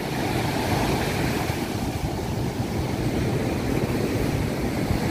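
Heavy cyclone-driven surf breaking and rushing over the shore as a steady roar, with wind rumbling on the microphone.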